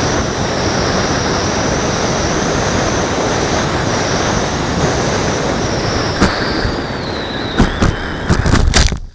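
ParkZone Habu electric ducted-fan jet heard from its onboard camera: a steady rush of air with a high fan whine, the whine falling as the fan spools down about six seconds in. Near the end come a string of knocks and scrapes as the plane touches down on the grass and slides through a mole hill.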